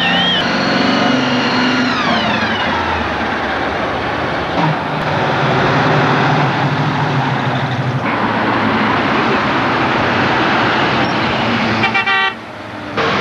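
Muscle cars cruising past with loud exhausts. A car horn falls in pitch as it goes by at the start, and a deep engine rumble comes through from about five to eight seconds in.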